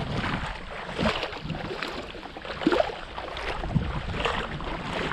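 Someone wading through shallow seawater, feet splashing irregularly about once or twice a second, with a few sharper splashes, over a low rumble of wind on the microphone.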